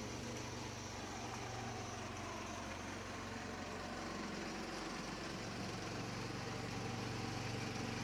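Small single-cylinder engine of a Craftsman mini riding mower running steadily as the mower is driven, its mower blades partly engaged because the belt is not releasing. The hum grows a little louder toward the end as the mower comes back toward the listener.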